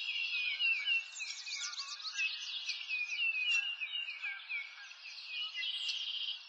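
Birds chirping: a dense chorus of many overlapping short, high calls, most of them falling in pitch.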